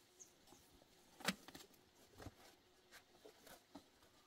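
Near silence: quiet room tone, with one sharp click about a second in and a few fainter ticks and knocks after it.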